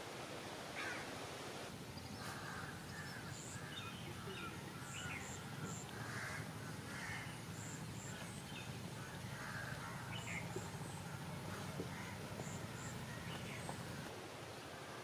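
Birds calling outdoors: crows cawing repeatedly, with small birds chirping in short high notes, over a low steady hum.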